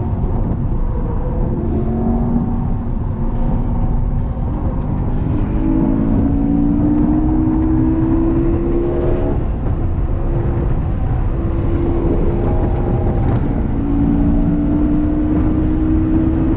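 BMW E92 M3's 4.0-litre V8 heard from inside the cabin at lap pace. The engine note climbs steadily for a few seconds, breaks off about nine seconds in, then climbs again near the end, over heavy road and wind rumble.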